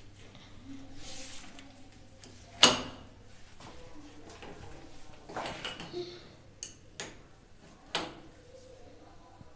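Metal wrench clanking and scraping on a plumbing fitting while a flexible supply hose connection is unscrewed: a few sharp metallic knocks, the loudest about two and a half seconds in, and smaller ones later.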